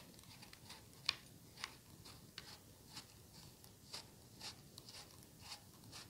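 Faint, irregular scratchy ticks of a metal peeler shaving the skin off a fresh apple, about one or two short scrapes a second as the apple is turned.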